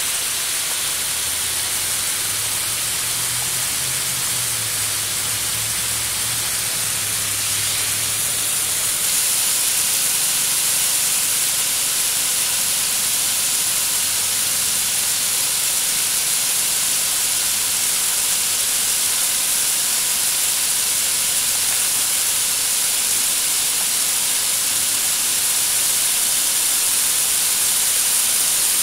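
Backyard snowmaking gun spraying from its nozzle: a steady, loud hiss, a little louder from about nine seconds in.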